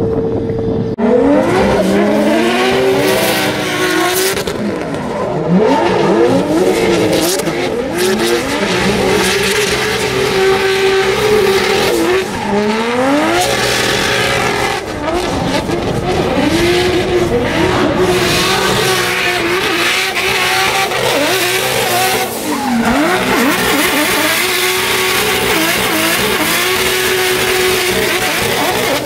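Drift cars sliding with engines revving hard, the pitch rising and falling again and again, over the hiss and squeal of spinning, smoking tyres.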